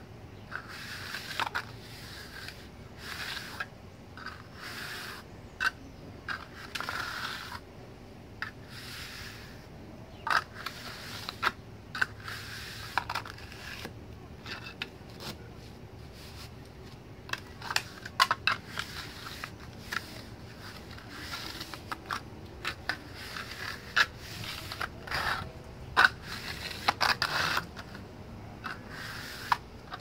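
Flat hand trowel scraping and smoothing the surface of wet sand-cement mortar, in short irregular strokes with occasional sharp clicks.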